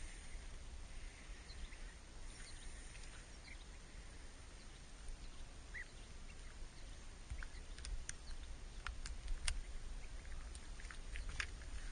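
Outdoor ambience: a steady low rumble, with scattered light clicks and ticks that come more often in the second half, and a short faint chirp about six seconds in.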